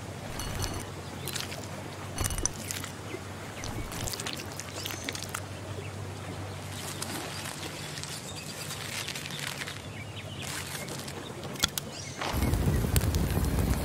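Outdoor ambience with birds chirping and light clicks and rustles from sticks being handled. About twelve seconds in, a louder noise with a low rumble sets in.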